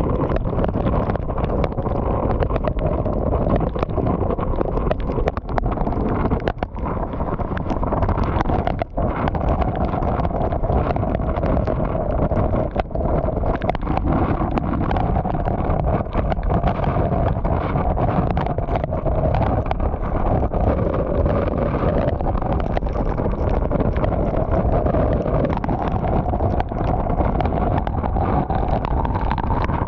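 Hurricane winds and driving rain buffeting a car, heard as a loud steady roar with wind noise on the microphone and a faint wavering whistle.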